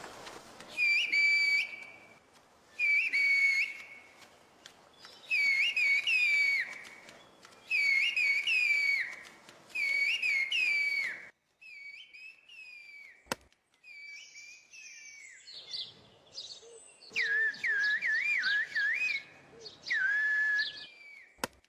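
Whistled Turkish (kuş dili, the 'bird language'): a person whistles words as a series of piercing phrases, each about a second long, with the pitch sliding and swooping. Six loud phrases come first. After a break about halfway the whistles are fainter, then louder, more warbling whistled phrases come back near the end.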